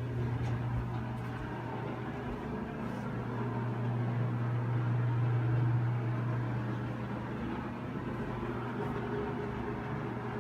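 A steady low hum over faint room noise, a little louder in the middle, with a few faint clicks.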